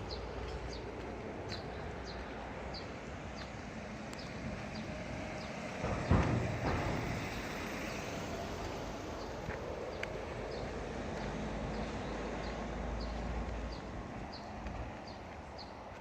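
Footsteps of someone walking at an even pace, about two steps a second, with one louder thump about six seconds in.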